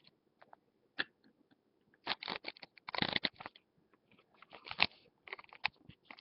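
Small plastic Littlest Pet Shop toy figures being handled close to the microphone: clicks, taps and rustles in short clusters as a figure is moved and set down on a plastic stand.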